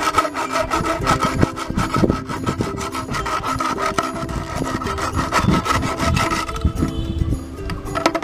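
Hacksaw blade cutting around a white PVC pipe in quick back-and-forth strokes, each stroke a rasping scrape. The strokes thin out near the end as the pipe is turned.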